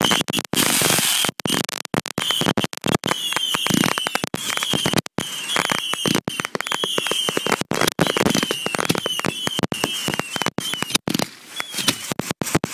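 Fireworks going off in quick succession: a dense, overlapping run of sharp bangs and crackling with no pause.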